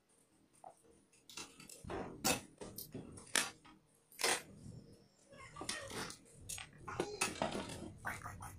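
Scattered knocks and clicks, about eight of them at irregular intervals, some ringing briefly: a Yamaha MG10XU mixer being handled and fitted back into its case.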